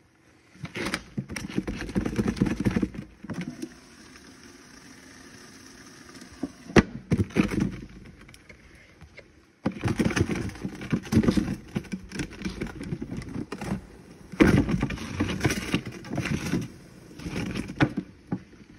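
A plastic Esky cooler being rolled back and forth, with drink cans knocking and tumbling inside it in a shallow pool of liquid nitrogen, to spread the nitrogen around the cans and chill them fast. The noise comes in several rough, knocking spells with quieter stretches between.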